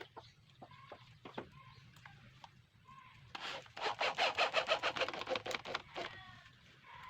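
Rapid scraping strokes on wood, about ten a second, lasting roughly two and a half seconds in the middle.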